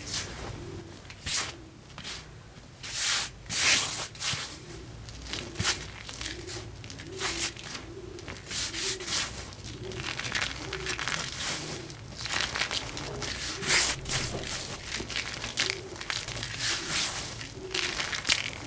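Coloured chalk being crushed and ground into powder: irregular gritty scraping and crunching strokes, with a few louder crunches about 3 to 4 seconds in and again about two-thirds through.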